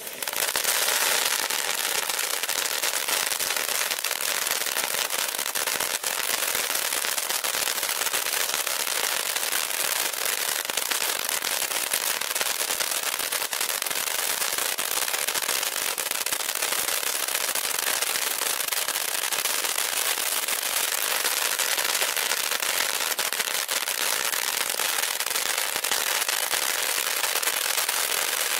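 Shogun SF895 Pop Corn Fountain, a ground fountain firework, burning with a dense, steady crackle of many small pops over the hiss of its spark spray.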